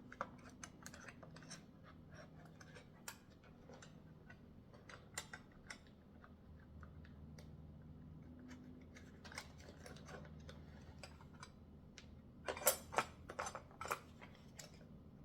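Scattered light clicks and taps of small screws and metal parts being handled and fitted through the top of a bike repair stand's tool tray. A quick run of louder clicks comes near the end.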